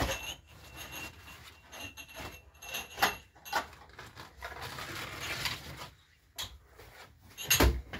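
Scattered knocks and clatter, several separate sharp hits, the loudest near the end with a deep thump.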